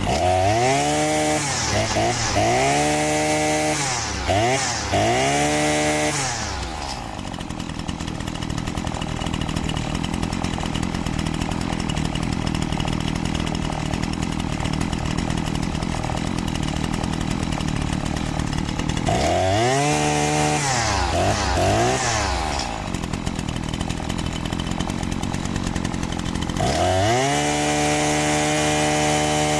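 Husqvarna 525L string trimmer's small two-stroke engine running on the bench, its carburetor's high and low needles just opened a quarter turn. It revs up and down about four times, settles to a steady idle for about twelve seconds, revs two or three more times, idles again, then climbs and holds at high speed near the end. The carburetor is one the mechanic suspects of a weak internal check valve.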